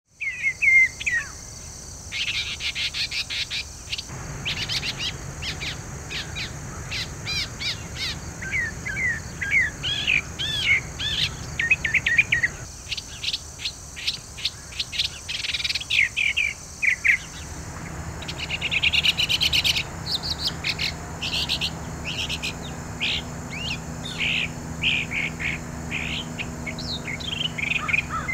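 Northern mockingbird singing a long, varied song of quick whistled, slurred and trilled phrases, many repeated several times before it switches to the next.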